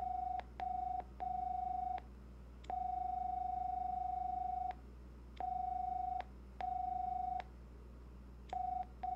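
Bellcore distinctive-ringing ringtones previewed on a Grandstream GXV3240 IP video phone: one steady ringing tone played in different cadences. First two short rings and a long one, then a single long ring of about two seconds, then two medium rings, and near the end a short-long-short pattern.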